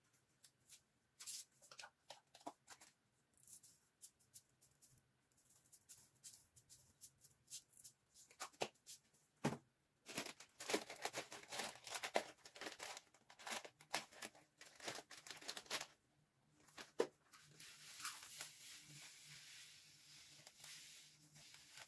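Plastic packaging crinkling and rustling, with scattered light clicks and taps of kitchen items, while ingredients are added to a bowl of cake batter. A soft steady hiss sets in near the end as something is poured from a plastic bag into a cup.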